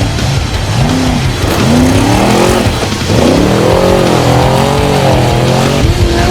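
Off-road race vehicle engine revving hard, its pitch climbing and falling again and again, held high through the second half before dropping near the end.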